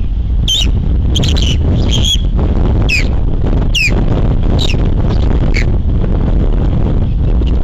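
Osprey giving a series of short, high whistled calls, each sliding down in pitch, about one a second, which stop a little past halfway. Strong wind buffets the microphone throughout with a heavy low rumble.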